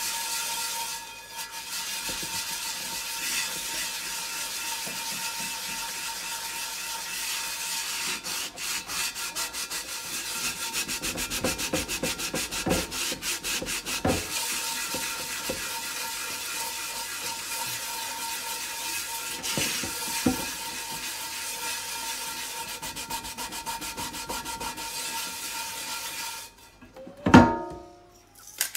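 Salt being scrubbed with a cloth over a Weber cast iron skillet: steady rubbing and scraping, with a spell of quick back-and-forth strokes about a third of the way in. The scrubbing stops near the end, followed by one brief louder sound.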